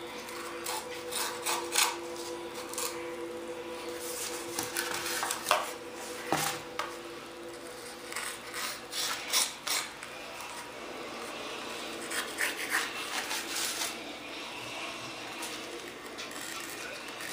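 Single-edge razor blade scraping and trimming the cured fiberglass and resin along the edge of a wood-sheeted foam panel: short rasping strokes in several quick runs with pauses between.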